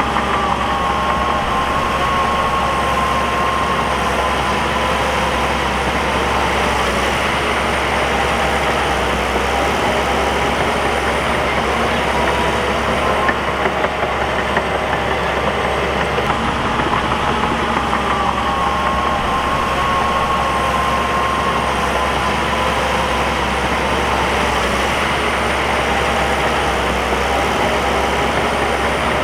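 Heavy bulldozer's diesel engine running steadily, with a high whine that slowly falls in pitch twice, near the start and about halfway through.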